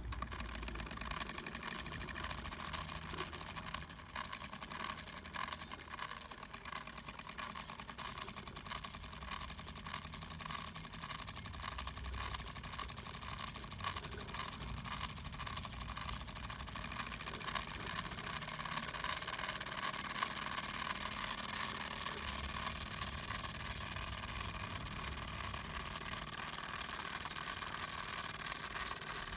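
Wilesco model steam tractor's small live-steam engine running fast after its regulator is opened: a rapid, steady chuffing of exhaust steam with light mechanical clatter, getting a little louder in the second half.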